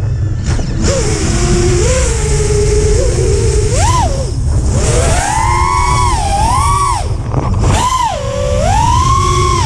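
FPV quadcopter's brushless motors and propellers whining, the pitch swooping up and down with the throttle through flips and hard turns, and dropping out briefly twice, about four and seven seconds in. Heavy wind rumble on the onboard camera's microphone runs underneath.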